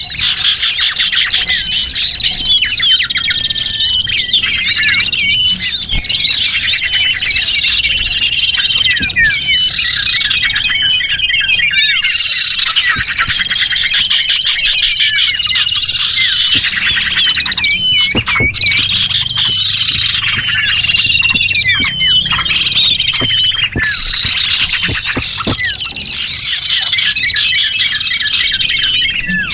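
Dense chorus of small songbirds chirping and trilling, many quick, high calls overlapping without a break. It is a bird-lure recording of the kind played to draw small birds in.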